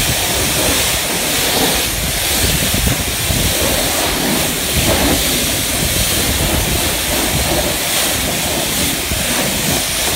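High-pressure water spray from a self-serve car wash wand striking a pickup truck's wheel, tyre and body panels: a steady hiss.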